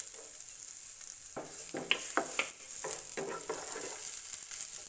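Chopped onion sizzling in hot oil in a frying pan, with a steady hiss. From about a second and a half in, a wooden spatula stirs it, giving a series of short scrapes and taps against the pan.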